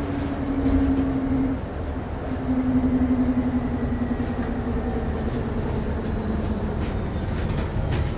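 Interior of a NovaBus LFS HEV hybrid-electric city bus under way: steady low road and drivetrain rumble with the whine of the hybrid drive slowly falling in pitch as the bus slows for a stop.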